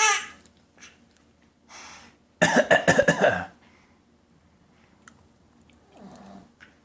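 A short burst of several quick coughs about two and a half seconds in, in a game of pretend coughing.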